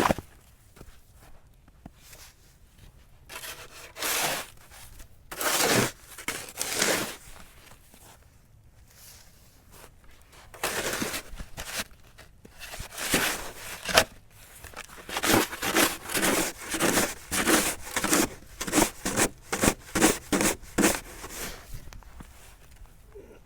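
Snow shovel scraping and crunching through snow in separate strokes with pauses between them, then a quicker run of short strokes, about two a second, in the second half. There is a sharp knock a little past the middle.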